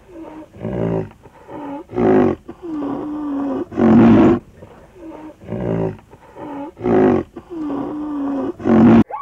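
White rhinoceros calling: loud breathy calls every two to three seconds, with long low drawn-out tones between them that dip and rise in pitch. The calls cut off abruptly just before the end.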